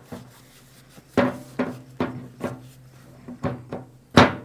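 A string of about seven irregular knocks and clacks, the loudest near the end, as steel impact sockets are set down on the workbench and pushed onto socket rails, over a steady low hum.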